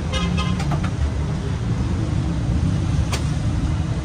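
Steady low rumble of road traffic, with a few sharp metallic clicks near the start and another about three seconds in.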